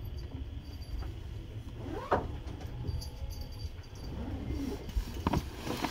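Seibu 2000 series electric train's underfloor equipment giving a steady low rumble and hum, with a few sharp clicks and knocks about two seconds in and again near the end.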